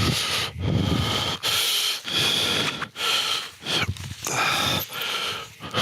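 A man's loud, heavy breathing: a string of about eight quick, noisy breaths in and out, each with a squeaky, wheezing whistle in it.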